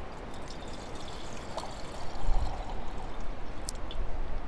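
Water being poured out of a bottle in a steady stream, with wind buffeting the microphone.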